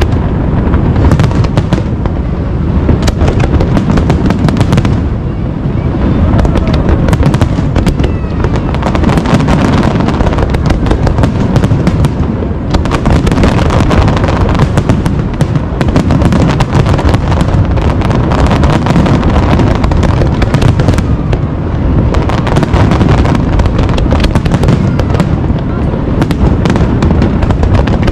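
Fireworks display: a loud, continuous barrage of aerial shells bursting, with dense bangs and crackle packed close together throughout.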